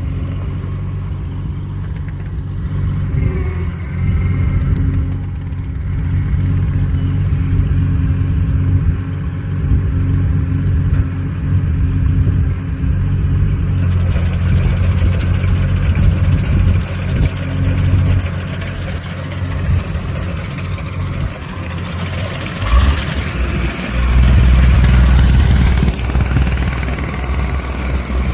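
An engine running steadily, louder and heavier near the end.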